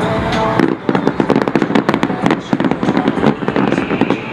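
Fireworks going off: a rapid, dense run of sharp bangs and crackles that starts about half a second in and lasts until near the end.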